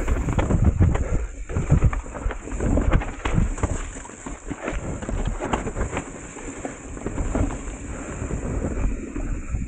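Mountain bike rolling down a rooty, rocky dirt trail: tyre noise and wind on the microphone, with frequent knocks and rattles from the bike over the bumps.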